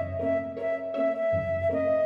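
Soft instrumental background music: a flute melody holds one long note over low notes that change about every second and a half.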